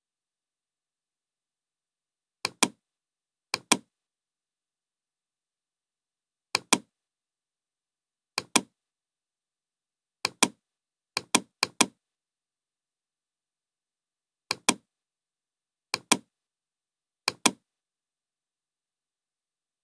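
Computer mouse button clicks, about ten spread irregularly. Each click is a sharp double tick of the button pressing and releasing.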